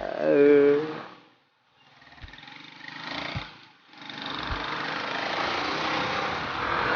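Wind and engine noise from a Yamaha Mio scooter being ridden, heard in short cut-together stretches with brief silent gaps. The last stretch is a steady rush that slowly grows louder.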